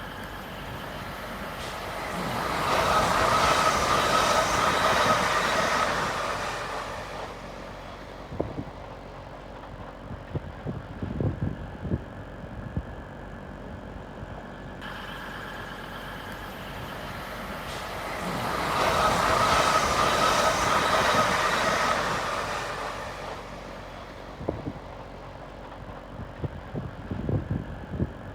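Train passing through the station: its noise swells up, holds, and dies away, twice, with a steady whine in it that is likened to a TIE fighter. Between the two passes there are a few low knocks.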